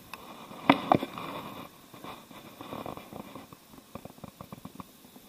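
Baitcasting reel during a cast: two sharp clicks, then a whirr from the spinning spool as line pays out for a couple of seconds. Near the end comes a run of light even ticks, about six a second.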